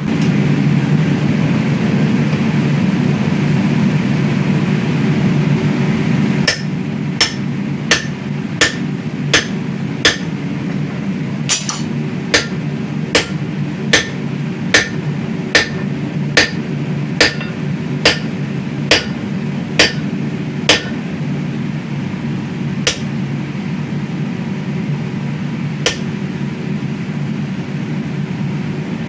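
Hand hammer striking a steel sledgehammer head on an anvil in a run of about eighteen ringing blows, a little over one a second, then two single blows after a pause. A steady mechanical hum runs underneath.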